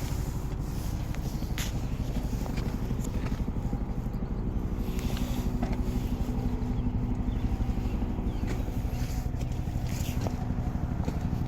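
An engine idling steadily, its rapid even firing pulses going on throughout, with a few light clicks over it.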